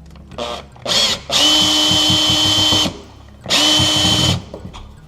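Power drill driving a screw into a cabinet door hinge. It starts with two short trigger pulls, then runs steadily for about a second and a half, then runs again for just under a second.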